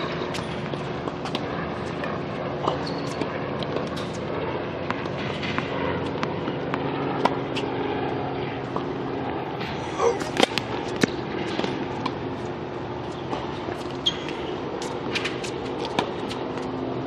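Tennis ball being bounced on a hard court and struck by a racket on serves: a string of short sharp pops, the loudest about ten seconds in, over a steady background hum.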